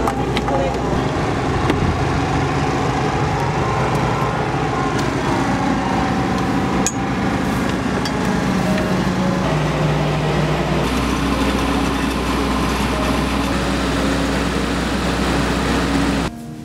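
A motor running steadily with a constant low hum and a few tones that shift in pitch now and then, cutting off abruptly near the end.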